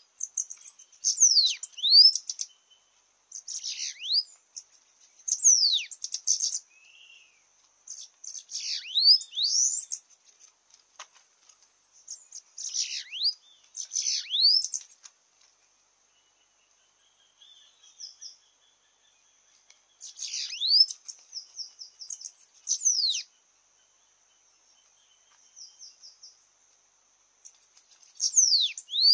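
Bananaquits singing: short, high-pitched, wheezy song phrases of quick downward sweeps, repeated every few seconds with a few longer pauses.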